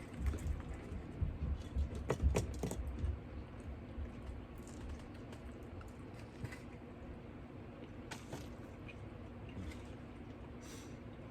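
Close-up eating and food-handling noises at a table: scattered small clicks and taps with low thumps, busiest in the first three seconds, then sparse.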